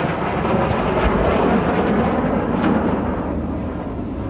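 Jet noise from Red Arrows BAE Hawk T1 jets passing during the display, swelling about a second in and easing off toward the end.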